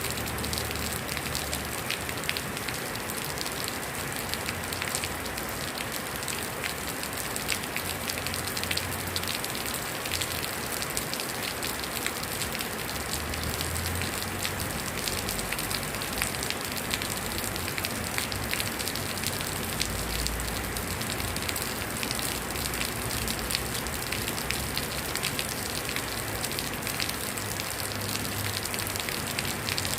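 Heavy rain falling steadily, a dense patter of many fine drops with no let-up.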